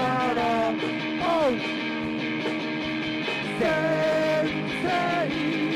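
Rock music: guitar over sustained chords, with a melody line that slides between notes.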